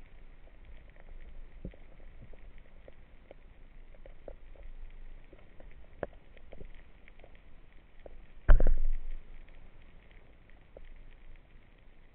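Underwater ambience with a low rumble and scattered faint crackling clicks, as heard on a diving camera. About two-thirds of the way through comes one sudden loud thump lasting about half a second.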